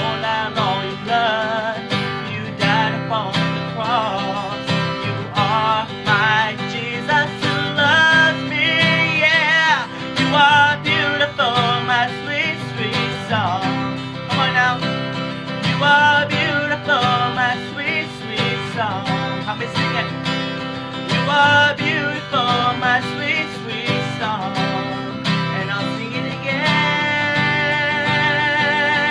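A man singing with his own strummed acoustic guitar, holding a long wavering note near the end.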